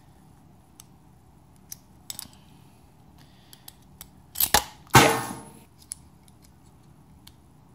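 Small metallic clicks of the Kahr CW380's steel slide and dual recoil spring assembly being handled, then two sharp metal clacks about four and a half and five seconds in, the second ringing briefly.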